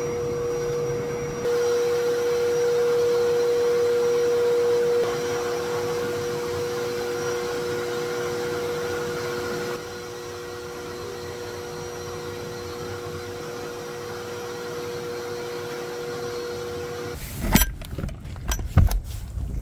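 Wet/dry shop vacuum running steadily with a motor whine, its loudness stepping up and down a few times. Near the end it stops, and a few sharp metal clicks and knocks follow as a latch is worked.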